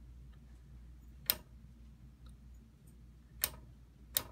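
Voltage selector switch of a Heathkit IT-11 capacitor checker clicking into its detents, three sharp clicks at uneven intervals, as the test voltage is stepped up during a capacitor leakage test.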